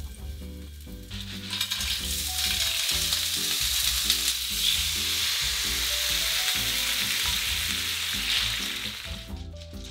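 Clams tipped into hot oil with garlic in an iron frying pan, frying with a loud sizzle that starts about a second in and dies down near the end. Soft background music plays underneath.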